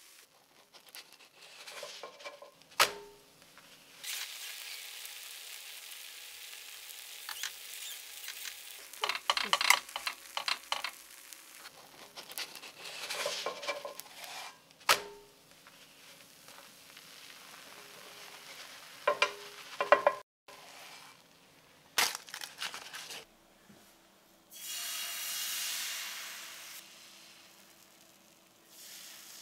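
Whole wheat crepe batter sizzling in a hot cast-iron pan, with sharp clicks and scrapes of a utensil against the pan now and then. Near the end a loud rush of sizzling as fresh batter hits the hot pan.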